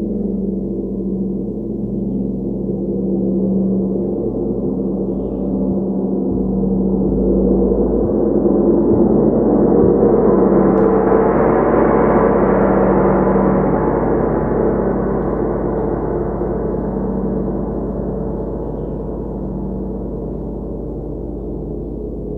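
40-inch therapy gong played with a soft felt mallet: a sustained wash of low ringing tones that swells and brightens to a peak about halfway through, then slowly dies away.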